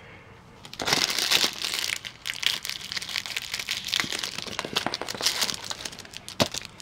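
Cellophane wrapper of a 1989 Fleer baseball card rack pack crinkling as it is cut open with scissors and handled, starting about a second in and going on in a dense run of crackles and sharp clicks.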